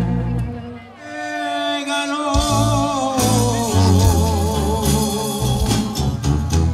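Music with singing: after a brief dip about a second in, bass returns and a long wavering sung line is held over the accompaniment.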